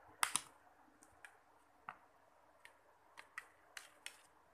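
Plastic back cover of a Micromax A107 phone being pried off with a fingernail, its snap clips releasing in a series of sharp clicks, the loudest two close together near the start.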